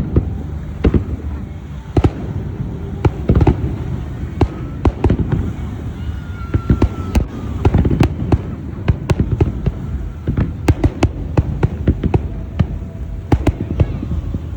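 Fireworks display: sharp bangs going off in quick, irregular succession, often several a second, over a continuous low rumble of distant bursts.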